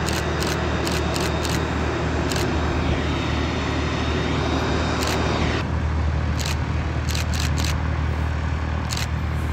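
Cessna 560 Citation business jet taxiing, its twin turbofan engines running with a steady rushing noise, a low hum and a faint high whine. The whine fades a little over halfway through as the jet turns.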